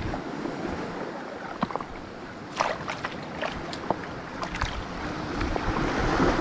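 Small waves washing in among boulders and pebbles on a rocky shore: a steady rushing hiss with scattered clicks and splashes, swelling near the end.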